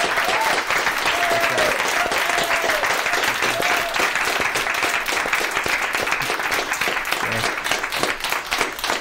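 Audience applauding: dense clapping from a roomful of people, with voices calling out over it in the first few seconds. The clapping thins out near the end.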